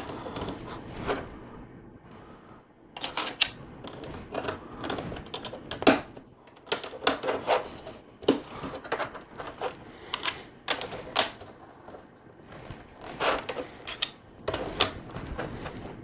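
Hard plastic LEGO pieces clicking and clacking, irregularly, as plates are handled and pressed onto Technic bricks.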